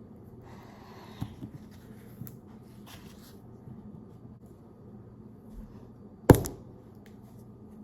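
Faint handling clicks and rustles over a low steady hum, then a single sharp knock about six seconds in, like a hard object set down or a cupboard shutting.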